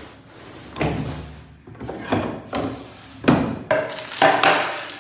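Wooden kitchen drawer sliding and shutting and a bamboo cutting board being handled and knocked onto a stone countertop: a string of separate wooden knocks and scrapes about a second apart, loudest after the middle.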